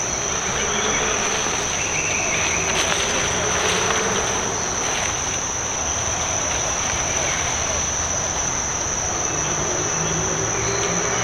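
Forest insects keep up a steady, unbroken, high-pitched drone over a low background hiss.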